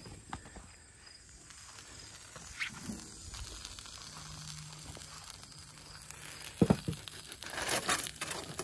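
Aluminium foil rustling while a covered cast-iron skillet is carried, then two sharp knocks about two-thirds through as the skillet is set down on a wooden table, followed by a burst of foil crinkling as the cover is pulled back.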